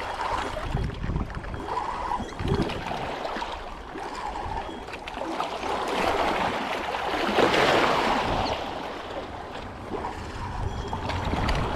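Small waves lapping and washing against shoreline rocks as a steady rushing wash. It swells to its loudest about seven to eight seconds in, then eases.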